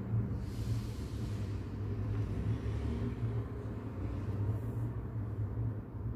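Steady brown noise: an even, deep rumbling hiss, heaviest in the low end.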